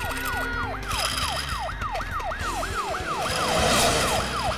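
Cartoon ambulance siren sounding in quick rising-and-falling sweeps, about three a second.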